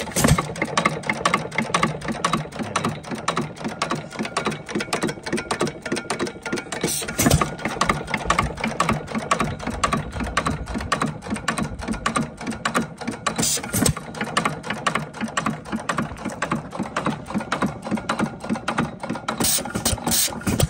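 1 1/2 HP Stover KE hit-and-miss engine running unloaded: rapid, even clicking of its valve gear and igniter as the flywheels coast, broken about every six and a half seconds by a single louder firing stroke, near the start, about seven seconds in and again about fourteen seconds in. The long coasts between firings show the governor holding it out of firing because it is running without a load.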